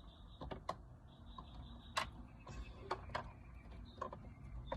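Scattered light clicks and taps of small plastic parts and cables being handled, a few sharper ones about two and three seconds in, with a faint high steady whine in stretches.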